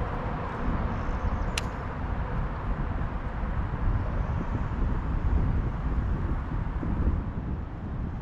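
Low, gusting rumble of wind buffeting the microphone, with one sharp click about a second and a half in.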